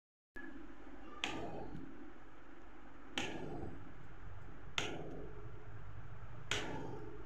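A kitchen knife cutting through a block of paneer on a plate, the blade knocking sharply against the plate four times, every second and a half to two seconds, over a steady low background noise.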